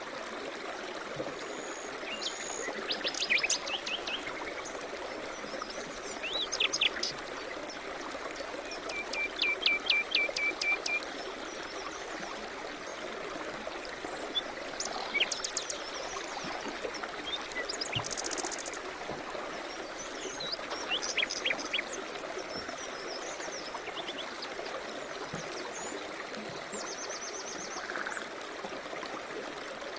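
A steady rushing stream with songbirds singing over it: short chirps and several rapid trills of quick repeated notes, scattered through and loudest a few seconds in and around ten seconds in.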